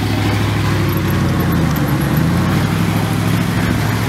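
Car engines running as cars drive slowly past, with a deep, steady engine note throughout.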